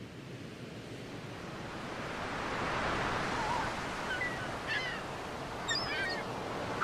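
Sea waves breaking and washing on a beach, fading in and growing louder, with birds giving short chirping calls several times in the second half.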